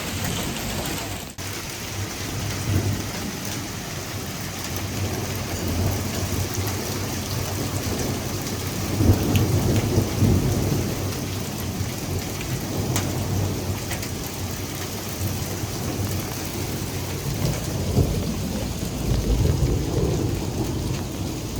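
A heavy hailstorm: large hailstones and rain pelting down in a dense, steady clatter of ice striking hard surfaces. Low rumbling swells rise about nine seconds in and again near eighteen seconds.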